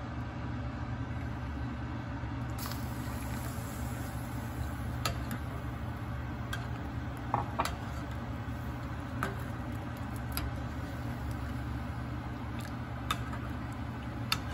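Steady low hum of the stove, with a few faint ticks from a pot of milk tea heating toward the boil.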